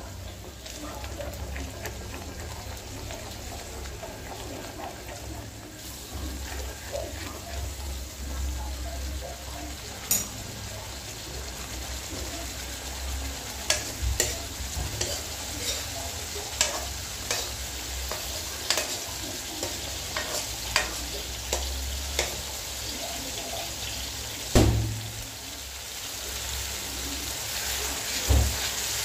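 Tomato, spice and yogurt masala sizzling in a metal kadai as a spatula stirs and scrapes it, with sharp taps of the spatula against the pan from about ten seconds in, the loudest near the end. The masala is being fried down until the oil separates from it.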